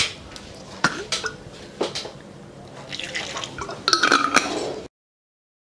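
A few clinks of glass and kitchen vessels, then water being poured from a glass bottle for about a second and a half. This is more water going in to thin the chutney paste for grinding. The sound cuts out abruptly about five seconds in.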